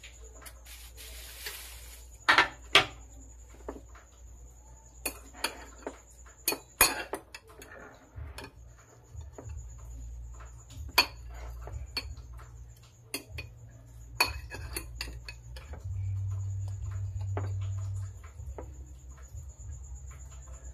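A metal fork stirring and tossing cucumber salad in a bowl, with irregular sharp clinks against the bowl. A low steady hum runs underneath and grows louder for a couple of seconds near the end.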